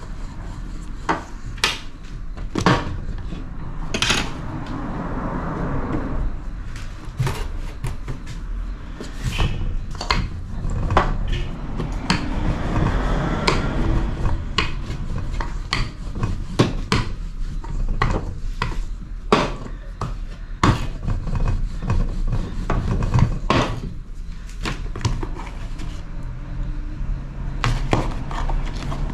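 A rolling pin rolling out dough on a glass tabletop, with irregular clicks and knocks as it rolls and bumps against the glass. A steady low hum runs underneath.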